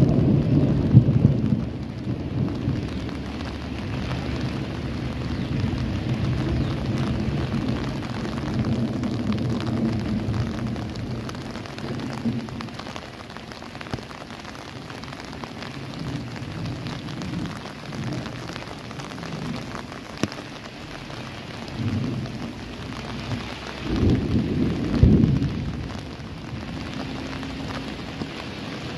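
Thunder rumbling over steady rain: a loud rolling peal at the start that fades over about ten seconds, and a second, shorter peal about twenty-four seconds in.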